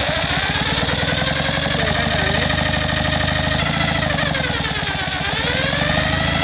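Electric drill spinning the crankshaft of a 1957 NSU Quickly 48 cc moped engine to test the ignition spark. Its whine holds steady, dips in pitch about five seconds in as it slows under load, then rises back.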